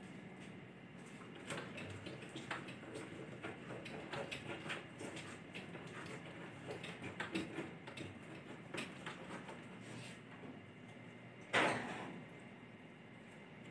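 A cat pawing and scratching at a door: scattered light scratches and taps, then one louder, brief scrape or rattle near the end.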